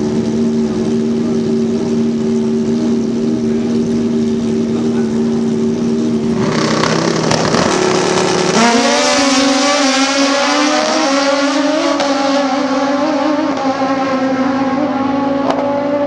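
Drag-racing motorcycle engine running at a steady idle, then rough and noisy for a couple of seconds before the revs step up about eight seconds in and are held high, edging slowly higher.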